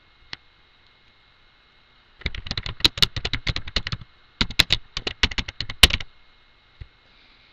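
Typing on a computer keyboard: two quick runs of keystrokes, each just under two seconds, with a short pause between them.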